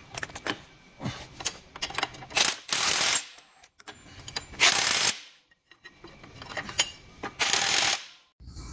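Ratchet wrench clicking as it runs down the axle-mount bolts before they are torqued, in several short runs of rapid clicks, the loudest about a third of the way in, halfway through and near the end, with scattered single clicks between.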